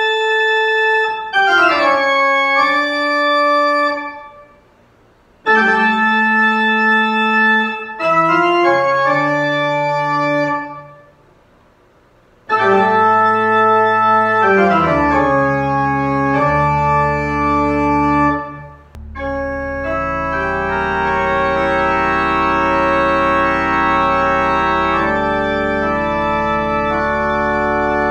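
Pipe organ playing held chords whose notes sound steadily without fading. The chords break off twice into short pauses. About halfway through, deep bass notes come in under a fuller, continuous passage.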